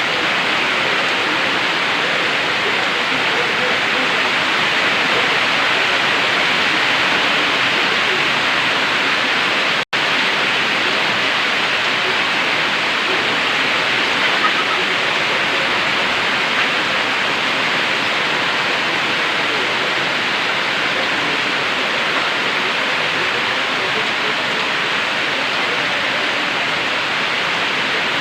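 Heavy tropical-storm rain falling steadily, a dense even downpour. It cuts out for an instant about ten seconds in.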